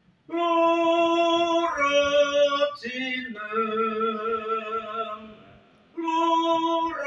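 A man singing sustained notes of the Javanese slendro scale, descending in four steps from the high note 3 (lu, ro, ji, nem), the last note long with vibrato. After a short pause he starts again on the high note near the end.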